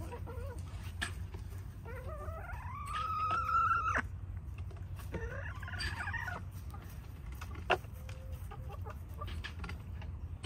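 Backyard hens clucking, with one long call that rises and then holds for about two seconds, starting about two seconds in, and a shorter call a little later; small clicks of feet and beaks in straw throughout.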